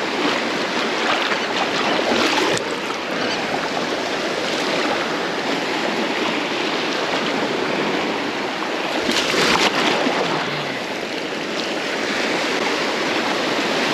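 Shallow Gulf surf washing in a steady rush of water, louder for a moment about two and a half seconds in and again near ten seconds in.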